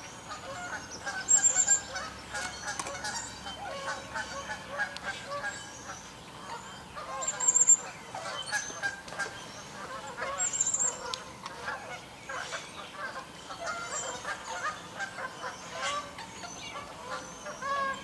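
A flock of Canada geese and tundra swans calling on the water: a steady chorus of overlapping honks, with three louder, sharper calls standing out.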